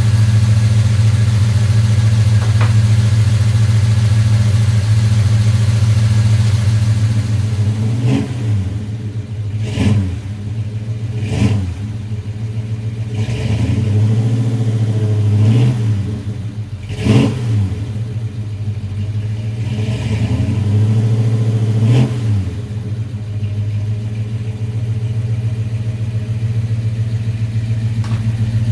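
Freshly rebuilt 454 big-block V8 of a 1988 Chevy Suburban idling steadily, then blipped through about eight quick revs that rise and fall back to idle, before settling into a steady idle again.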